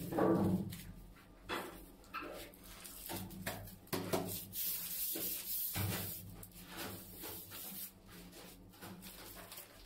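Gloved hands rubbing and pressing ceramic wall tiles into fresh tile adhesive: irregular scuffs with soft knocks.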